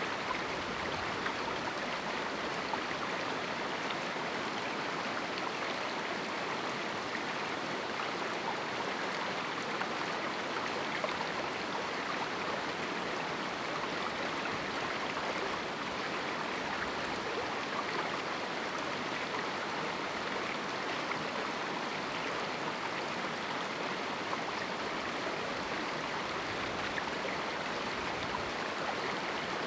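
A river flowing over rocks in a small canyon, a steady, even rush of water with no change.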